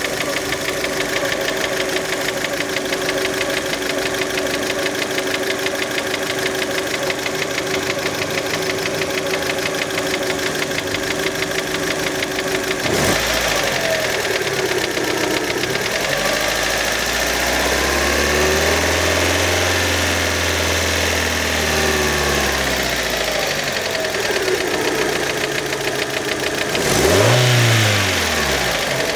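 Warmed-up Fiat Panda petrol engine idling with a knock, the fault being demonstrated. It is blipped once about halfway, revved up slowly and let fall back over several seconds, then blipped sharply once near the end before settling back to idle.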